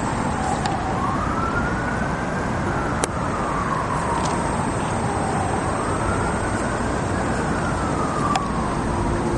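A siren wailing, slowly rising and falling in pitch twice, over a steady rush of noise.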